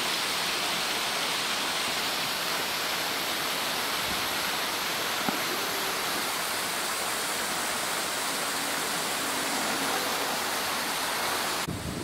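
Steady, even rush of falling water from a waterfall, cutting off abruptly near the end.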